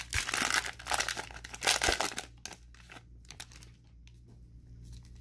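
Cellophane wrapper of a Mosaic basketball cello pack being torn open and crinkled by hand, a loud crackling for about two seconds, then only faint scattered crinkles.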